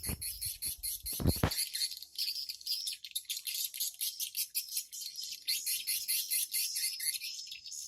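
Swiftlets chirping in a fast, continuous high-pitched twitter. A couple of low thumps come in the first second and a half.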